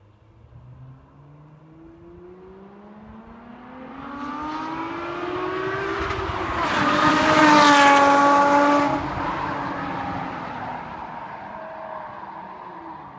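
Komo-Tec-tuned Lotus Evora S with a supercharged 3.5-litre V6, accelerating hard toward the listener with its engine pitch climbing steadily. It passes loudly about seven to nine seconds in, then fades away.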